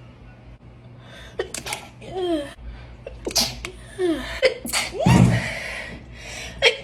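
A woman sneezing several times in a quick run, each sneeze a short sharp burst with a falling pitch. The loudest comes about five seconds in.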